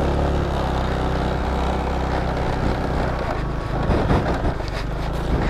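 Motor scooter engine held at steady, fairly high revs under throttle as it pushes along a rough dirt forest track, with a few knocks about four seconds in.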